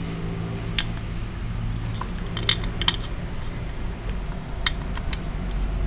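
Spark plug being handled and fitted into a motorcycle's air-cooled cylinder head: a handful of sharp, light metal clicks and taps, several close together in the middle, over a steady low hum.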